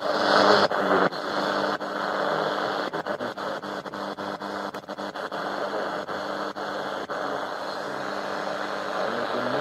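ATS25X1 shortwave receiver's speaker hissing with static as it is tuned across the 41-metre band in AM, cutting out briefly again and again as the frequency steps. The static is louder for the first half-second.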